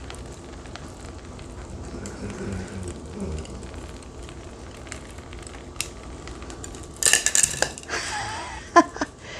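Electric hot foam cutter slicing through foam, with faint crackling and scattered small clicks; about seven seconds in comes a louder, brief squeaky crunch of the foam.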